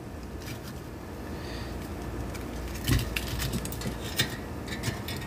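Silicone-tipped tongs knocking and scraping against a nonstick air fryer basket as pork chops are turned over: a few scattered clicks, most around three seconds in and again around four seconds, over a steady low hum.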